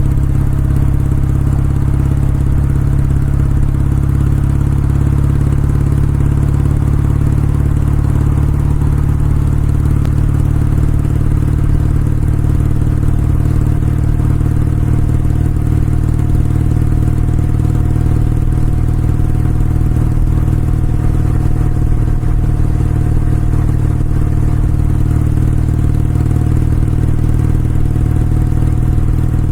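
Kawasaki W650's air-cooled parallel-twin engine and exhaust running at a steady, nearly unchanging engine speed.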